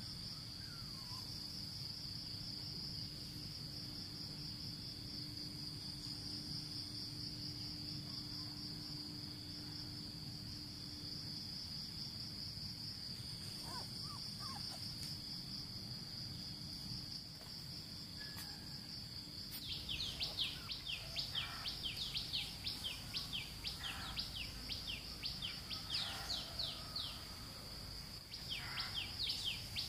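Outdoor nature ambience: a steady high-pitched insect trill, joined about two-thirds of the way in by rapid runs of high, quickly falling chirps.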